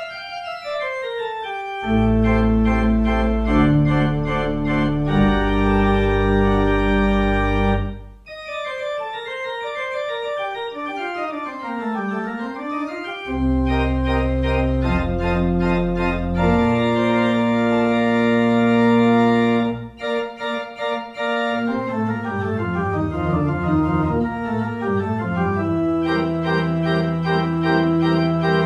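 Church pipe organ playing a postlude: quick runs of notes climbing and falling over long-held deep pedal notes, with brief breaks about eight and twenty seconds in.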